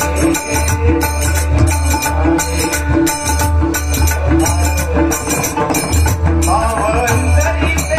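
Live devotional bhajan accompaniment: deep pakhawaj and tabla drumming under brass jhanj hand cymbals clashing in a steady rhythm, about three clashes a second. A male singing voice comes in about five and a half seconds in.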